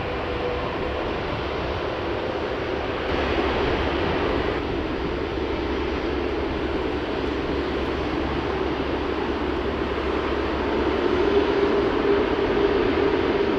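Airbus A380-841's Rolls-Royce Trent 970 jet engines running at low taxi power: a steady rushing hum with a droning tone, growing a little louder near the end.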